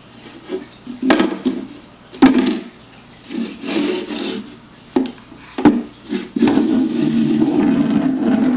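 Plastic Tupperware containers being handled by a baby: several sharp knocks as pieces hit each other or the floor, between stretches of scraping and rubbing, with a longer steady scrape near the end.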